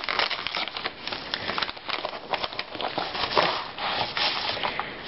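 Sealed Air Mail Lite padded mailing envelope crinkling and rustling with many small crackles as it is handled and opened and a book is slid out of it.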